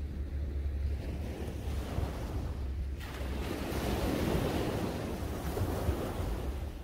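Small sea waves breaking on a sandy beach and washing up the shore. One wave breaks louder about three seconds in and dies away over the next few seconds. Wind rumbles on the microphone underneath.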